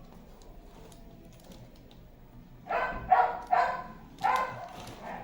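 A dog barking four times in quick succession, starting about halfway through.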